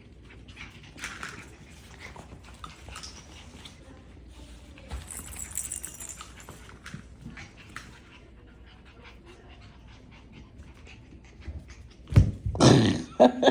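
Biewer Terrier puppies at play: faint whimpers, panting and small scuffling clicks, then a much louder burst of sound near the end.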